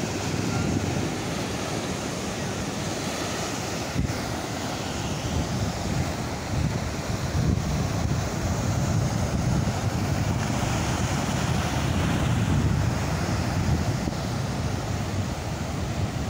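Sea surf breaking against a rock and along the shore, mixed with wind rushing over the microphone.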